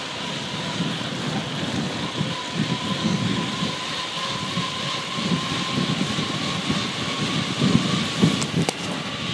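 Wind rushing and buffeting on the microphone of a phone carried by a cyclist descending fast on a road bike, with a faint steady whine underneath.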